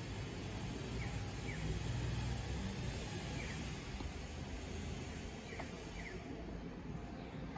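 Outdoor yard ambience: a low vehicle engine rumble that fades out about three seconds in, with a few short bird chirps scattered through.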